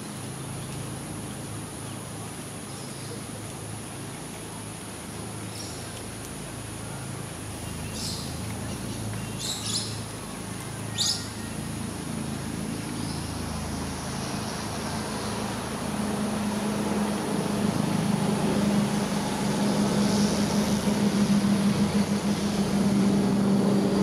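Outdoor ambience with a few short bird chirps around the middle, then a low engine drone of an aircraft passing overhead that swells over the last third and becomes the loudest sound.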